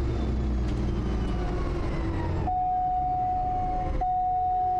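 Quest Kodiak's PT6A turboprop engine winding down after shutdown: a low rumble with a whine that slowly falls in pitch. A steady high tone joins about halfway through.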